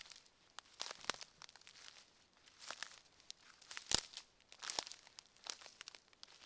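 Footsteps crunching on a forest path, about one step a second at an uneven walking pace, the heaviest step about four seconds in.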